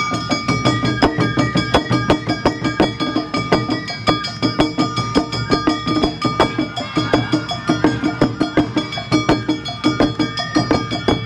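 Awa Odori festival band playing: taiko drums and a rapidly struck kane hand gong keeping a fast, even beat, with held high notes above them.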